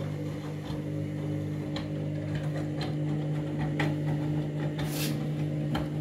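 Front-loading washing machine tumbling its load late in the main wash: the drum motor hums steadily while wet laundry and water slosh and slap inside the drum, with a few sharper splashes.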